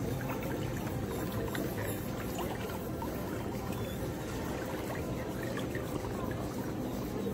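Whirlpool jets of a pedicure foot-spa tub churning the water, a steady low running noise.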